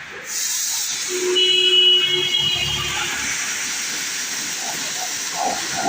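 Pressure washer spraying water in a steady hiss that starts just after the beginning. A brief steady tone sounds over it from about one to three seconds in.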